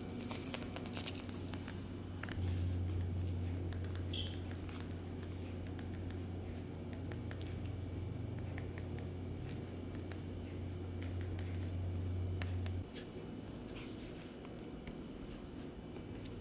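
Shih Tzu puppy being rubbed and played with right at the microphone: soft fur-rustling and scattered small clicks. A steady low hum runs underneath from about two seconds in and cuts off abruptly at about thirteen seconds.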